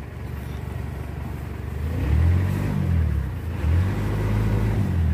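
Off-road jeep's engine pulling at low speed on a rough dirt track, revving up about two seconds in and again from about three and a half to five seconds.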